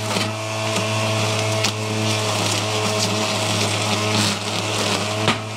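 String trimmer running steadily, its spinning line cutting through grass and weeds, with scattered sharp ticks as the line strikes stems and gravel.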